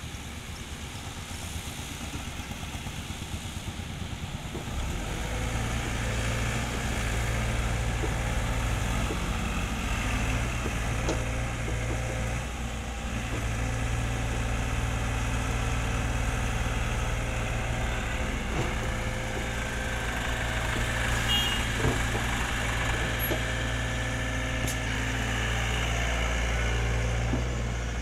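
Diesel engines of a farm tractor and a LOVOL excavator running steadily close by. The rumble grows louder about five seconds in, with a few light knocks in the second half.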